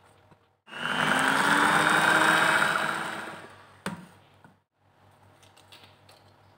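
Electric hand mixer running with its beaters in whipped cream and cocoa powder. It starts suddenly, its motor whine climbs slightly in pitch, and it dies away over about three seconds. A single sharp click follows near the end of the run.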